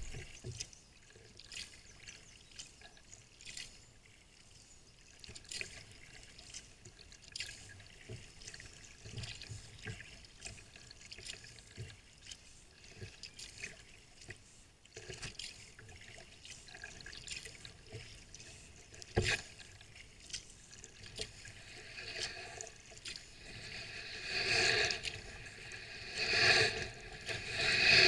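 Sea kayak being paddled: paddle blades dipping and water dripping and trickling at a steady stroke rhythm. There is one sharp knock about two-thirds through, and the splashing grows louder near the end.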